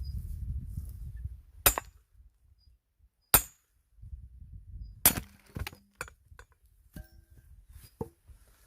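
Axe blows splitting firewood: three sharp strikes about a second and a half apart, the middle one the loudest, followed by a few lighter knocks.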